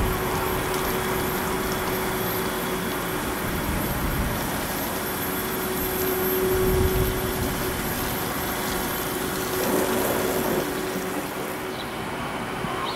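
Street traffic: a vehicle running close by with a steady hum, the sound swelling a little midway.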